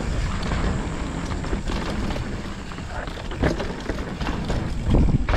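Mountain bike riding down a dirt trail: tyres rolling over dirt and wind rushing over the microphone, with a couple of knocks from the bike over bumps, one about three and a half seconds in and another near the end.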